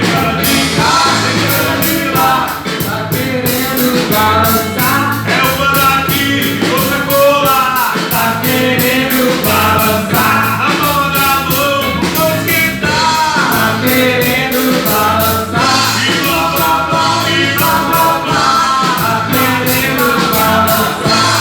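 Live band playing a rock song with a singer, the drums and cymbals keeping a steady beat.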